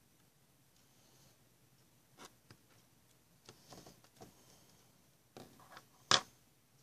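Small craft scissors snipping and hands working soft modelling clay: scattered faint clicks and rustles, then one sharp, louder clack a little after six seconds in as the scissors are set down on the table.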